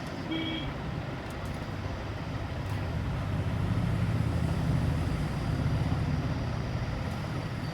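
Low, steady rumble of a motor vehicle, growing louder through the middle and easing off again.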